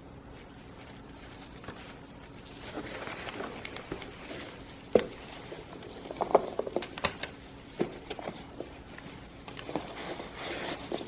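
Packaging being handled and unwrapped by hand: rustling with irregular sharp taps and clicks, loudest about five to seven seconds in.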